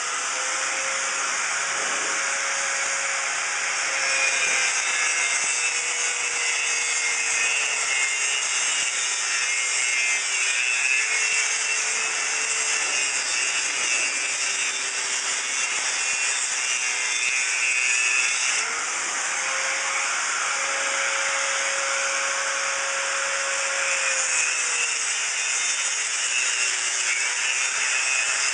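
Pneumatic air hammer running at 90 psi, chiselling old pool plaster: a continuous harsh, rattling buzz whose pitch wavers up and down, with a change in tone about two-thirds of the way through.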